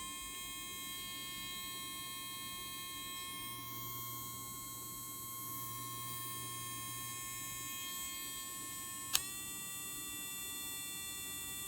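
Small electric motor of a dog nail grinder running with a steady high whine. About nine seconds in there is a sharp click, after which the pitch settles slightly lower.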